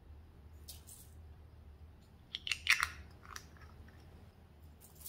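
Small plastic glitter pots handled and twisted in the fingers: a few short crackling plastic scrapes and clicks, the loudest cluster about halfway through.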